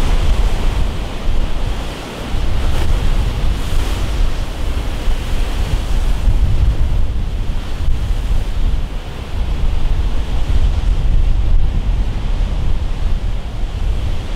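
Rough surf breaking and churning along a seawall, with strong wind buffeting the microphone as a heavy, fluctuating low rumble.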